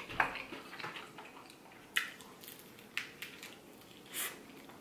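A metal fork clinking against a plate, a few sharp clinks about a second apart, the last one a little drawn out.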